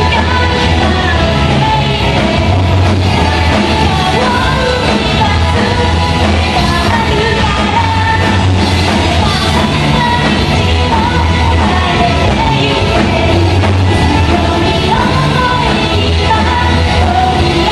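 Rock band playing live: a lead singer over electric guitar and drums, loud and continuous.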